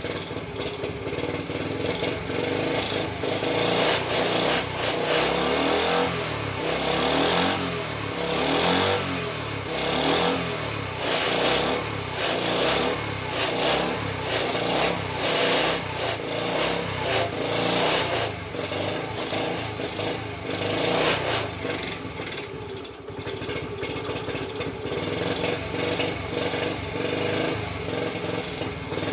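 A Honda ST50's small 49 cc four-stroke single-cylinder engine running after a kickstart, revved up and down every second or two with a brief dip near the end. The owner thinks it sounds sweet enough, but he is still not convinced about the carburettor.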